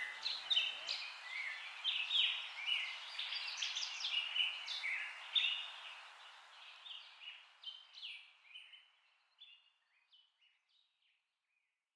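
Many birds chirping in quick, short calls over a light hiss, fading out steadily over the second half until gone.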